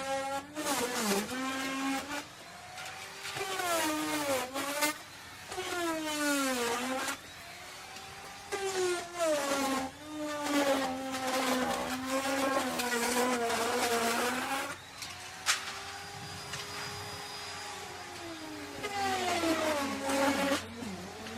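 Electric wood router running and cutting wood, its motor whine dropping in pitch as the bit loads up in the cut and climbing back again, over and over every second or two. About three-quarters of the way in there is a sharp click and the whine runs higher and steadier for a couple of seconds before it bogs down again.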